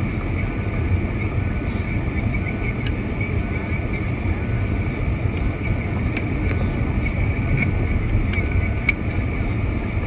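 Steady low rumble of a car driving, with scattered light ticks.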